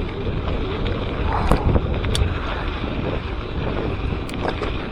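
Wind buffeting a helmet or bike-mounted action camera's microphone while a mountain bike rolls along a dirt trail, with a few sharp rattles from the bike over bumps.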